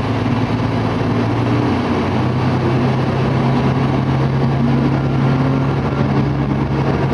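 Diesel railcar engine running steadily over track and running noise, its low note stepping up slightly about two seconds in.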